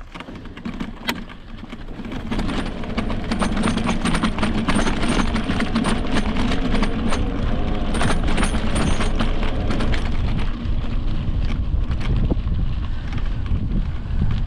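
Riding noise from an e-mountain bike on a dirt trail: wind rumbling on the microphone with tyres on dirt and the bike rattling and clicking over bumps. It grows louder about two seconds in.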